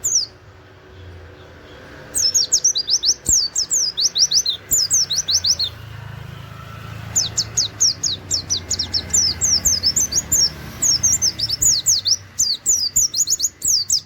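A pleci (white-eye, Zosterops) singing its fast 'nembak' song, rapid runs of high, quickly falling notes with canary-like 'wit wit' phrases. It comes in two long bouts, the first about two seconds in and the second from about seven seconds on.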